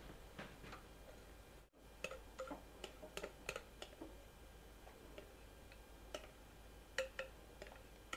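Metal wire whisk clinking and scraping against a glass mixing bowl in a run of light, irregular taps while thick cake batter is scraped out into the pans.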